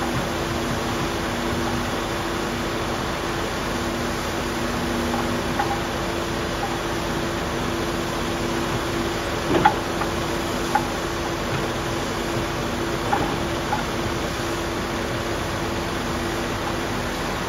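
Construction machinery running steadily: an even engine hum under a constant hiss, with a few light knocks, the loudest a little past halfway.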